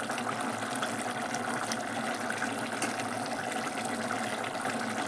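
Potato curry simmering in an open aluminium pressure cooker: a steady bubbling hiss, with light scrapes and clicks of a perforated metal ladle stirring it.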